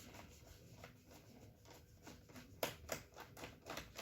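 Faint small clicks and taps of a screwdriver working on the screws of a laptop's plastic bottom cover, with a run of sharper clicks over the last second and a half.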